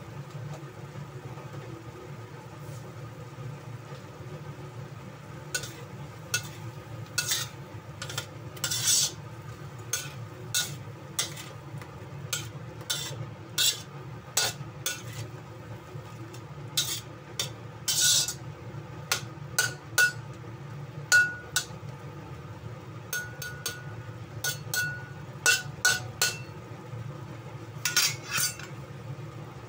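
A spatula scraping and clacking against a wok as chunks of opo squash are stir-fried in sauce, in irregular strokes that start about six seconds in and go on until near the end. A steady low hum runs underneath.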